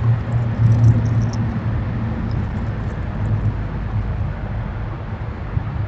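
Steady low rumble of background noise, with a few faint high ticks or chirps in the first second and a half.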